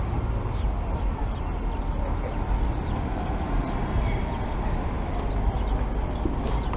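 City bus's diesel engine running as the bus pulls away and drives slowly past at close range, a steady low rumble with street noise.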